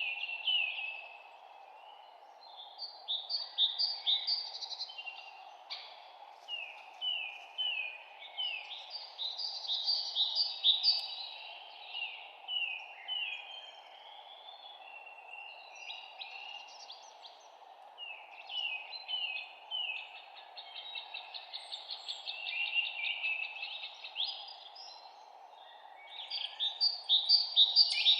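Songbirds singing in phrases of quick down-slurred chirps that repeat every few seconds, with short pauses between phrases, over a steady background hum.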